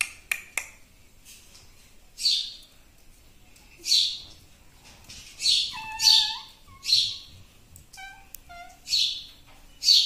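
Indian ringneck parakeet calling: about seven short, sharp high calls spaced a second or two apart, with a few short flat whistled notes around the middle and again near the end.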